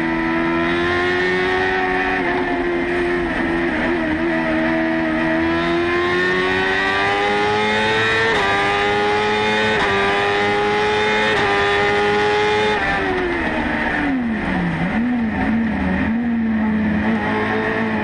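BMW S1000RR inline-four motorcycle engine in a Fiat 500 hillclimb prototype, heard from inside the cockpit, running hard at high revs with the pitch climbing slowly and jumping in a few sudden steps. About 13 seconds in the revs drop sharply, waver up and down, then settle at a steady lower pitch.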